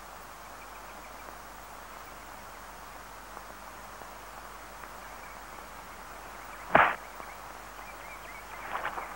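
A single sharp punch sound effect about two-thirds of the way in, over a steady faint hiss. A few light knocks and scuffs follow near the end.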